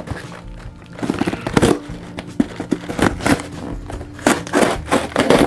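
Scissors cutting open a cardboard shipping box: irregular snips and scrapes with the crinkle and crunch of handled cardboard.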